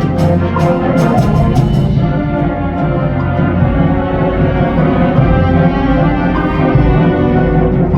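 Middle school wind ensemble playing a concert band piece: sustained full chords in the winds over a steady low bass. Sharp percussion strokes sound through the first two seconds, then stop while the chords are held.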